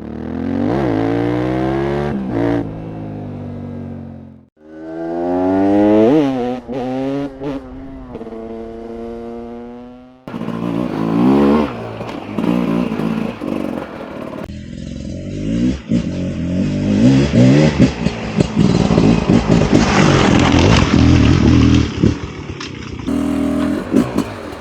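Beta RR 300 single-cylinder two-stroke enduro engine revving up and dropping back again and again, in short clips joined by abrupt cuts. Later it runs hard under riding, with clattering and scraping mixed in.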